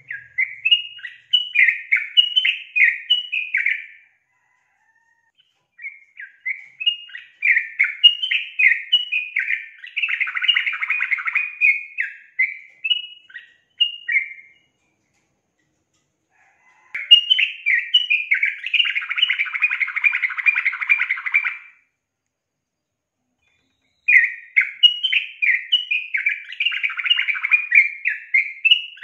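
Yellow-vented bulbul (trucukan) singing four bursts of quick, bubbly chattering notes, each several seconds long, with short pauses between. It is a female's call, used as a lure to set males singing.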